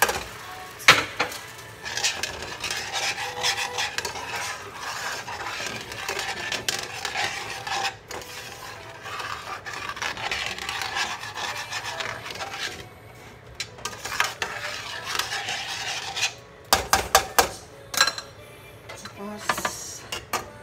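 A spatula scraping and stirring in a stainless-steel pot of soy-sauce adobo marinade, a steady rasping scrape, then a few sharp knocks near the end.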